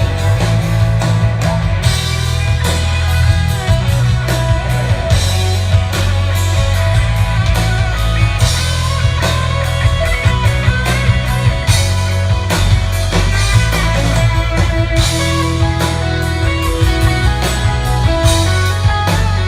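Live country-rock band playing an instrumental break with no singing: guitar over a heavy bass line and a steady drum-kit beat.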